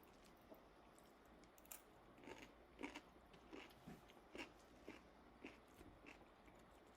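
Faint chewing of a mouthful of salad, with soft crunches roughly every half second.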